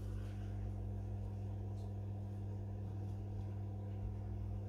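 A steady low electrical or appliance hum, with faint, soft strokes of a knife cutting through cracker dough on a silicone baking mat.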